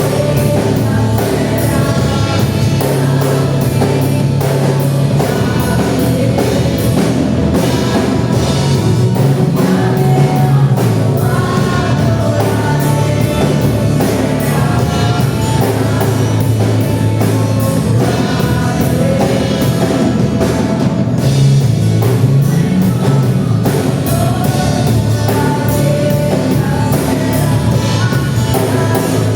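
Live gospel worship band playing with singing, drums and guitar keeping a steady beat.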